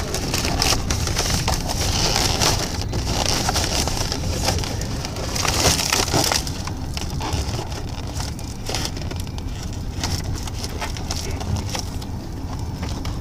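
Crackling and rustling right at the microphone, over the steady low rumble of a car cabin on the road. The crackle thins out after about six seconds.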